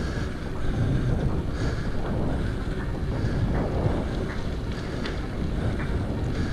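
Wind buffeting the microphone of a rider on a full-suspension mountain bike, over a steady low rumble, with scattered short clicks from about halfway through.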